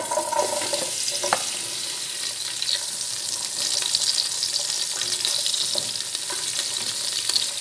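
Sliced linguiça sausage and diced bacon sizzling in hot oil in a pot, a steady hiss as the meat starts to sear, with one light knock about a second in.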